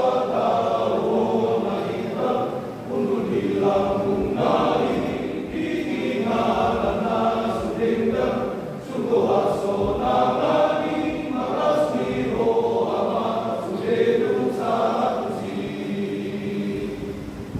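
Men's church choir singing in several voice parts, in long phrases with brief dips for breath about three and nine seconds in.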